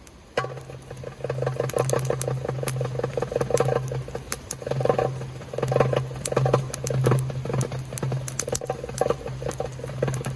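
Fast, soft darbuka finger rolls over rain patter and sharp crackles from a wood campfire.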